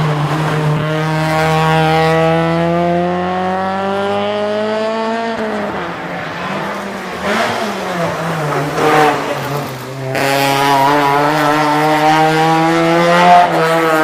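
Honda Integra Type R's four-cylinder engine under hard acceleration, its pitch climbing steadily for about five seconds before dropping away as the throttle comes off. It rises and falls briefly, then pulls again from about ten seconds in, with a short blip near the end.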